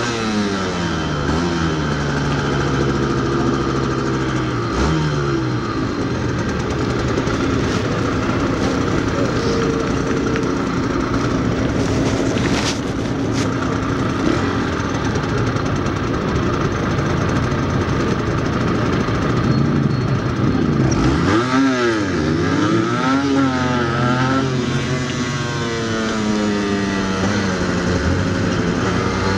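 Yamaha DT125X 125cc two-stroke single with an Arrow exhaust, heard from on the bike: the revs fall as it slows at the start, the engine runs steadily at low revs through the middle, then the revs rise and fall several times about two-thirds in as it gets going again.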